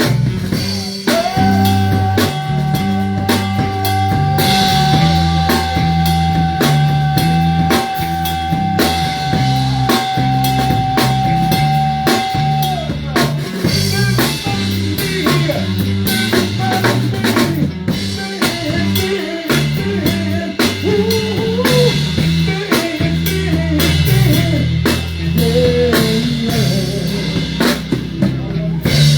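Live soul band playing an instrumental passage: drum kit and bass keep a steady beat under guitar. One long high note is held for about ten seconds near the start, and a melody line moves over the groove in the second half.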